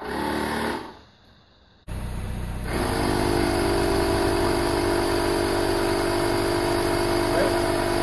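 A 12-volt portable tire inflator runs for a moment and stops. About two seconds in it starts again and runs steadily, its motor humming as it pumps air into a spare tire.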